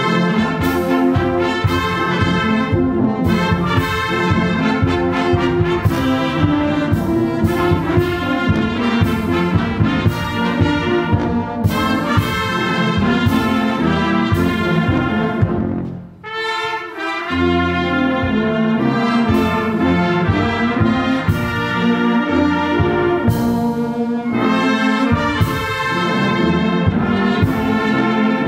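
Brass band of trumpets, trombones, euphoniums and sousaphone, with clarinets and flutes, playing together in full ensemble, with a short break between phrases about halfway through.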